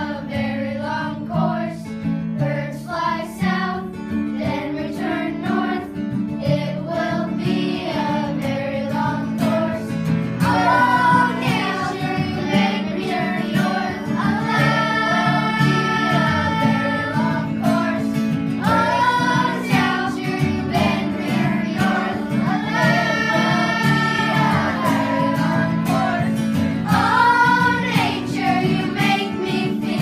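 A group of fourth-grade children singing together over a steady instrumental accompaniment; the singing grows louder and fuller about ten seconds in.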